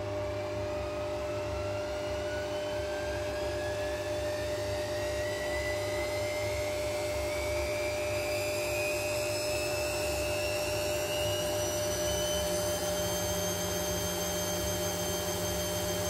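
Hisense front-loading washing machine on its spin cycle. The drum speeds up with a motor whine that rises steadily in pitch and levels off near the end, over a steady hum.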